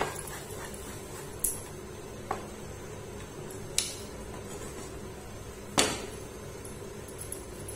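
A spoon clinking against a metal kadai as milk and sugar are stirred over the gas for peda: four sharp clinks, the one near the end the loudest, over a steady low hum.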